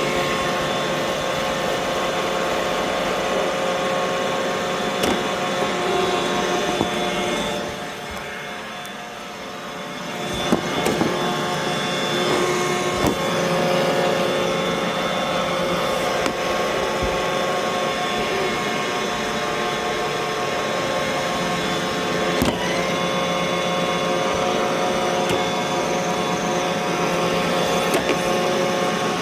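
Roomba robot vacuum running: a steady motor whine over brush noise. It drops away for a moment about eight seconds in, and there are a few sharp knocks.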